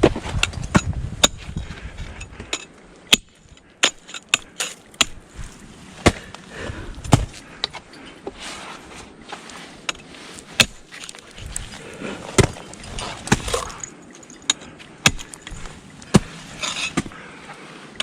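Climbing gear striking ice and frozen ground: sharp, irregular knocks of ice tools and crampons being placed, about one every second, with scraping in between.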